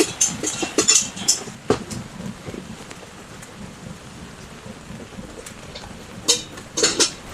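Heavy rain falling as a steady hiss, with a cluster of sharp slaps and cracks in the first two seconds and a few more near the end.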